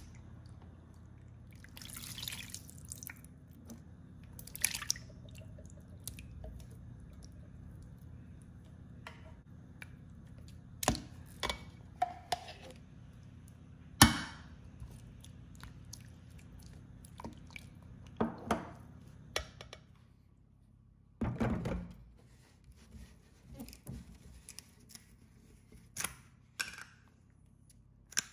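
Coconut milk poured from cans into a stainless-steel mixing bowl and worked into a thick white mixture with a spatula: wet pouring and squelching, with scattered clinks and knocks of the spatula and cans against metal over a low steady hum. One sharp knock about halfway through is the loudest sound.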